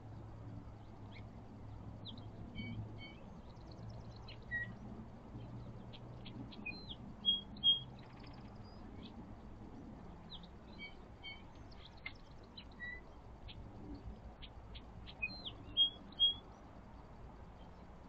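Songbirds chirping: short high notes and chips throughout, with a similar phrase sung twice, each followed by two loud high notes.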